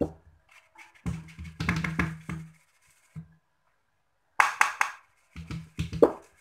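Green plastic flour sieve being shaken and knocked against a metal mixing bowl while flour is sifted through it, making two runs of quick, hollow, drum-like knocks, the second starting past the middle.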